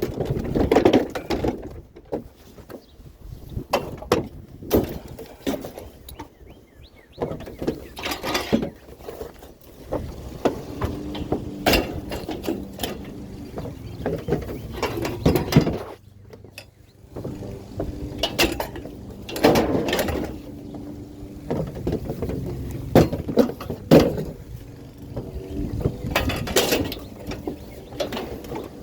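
Repeated metallic clanks and rattles, irregular and sharp. From about ten seconds in an engine runs steadily underneath.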